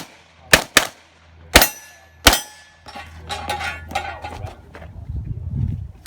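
SIG MPX pistol-caliber carbine firing: four sharp shots in the first two and a half seconds, a stretch of lighter metallic clatter, then another shot at the very end.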